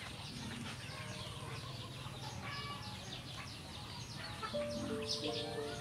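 Chickens clucking and birds chirping, with many quick high chirps throughout. Background music with held notes comes in near the end.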